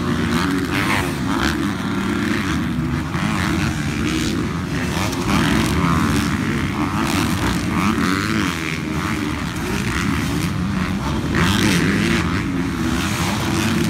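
Several motocross dirt bike engines revving up and down together, their pitches rising and falling and overlapping as the bikes race past.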